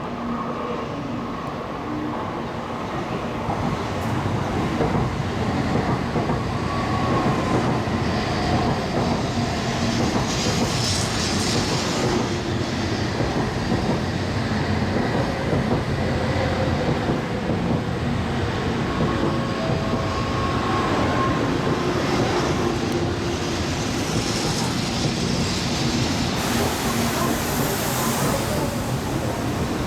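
N700S Shinkansen train pulling into the platform, its running noise growing louder over the first few seconds, with faint whining tones as it slows and a brief high hiss near the end.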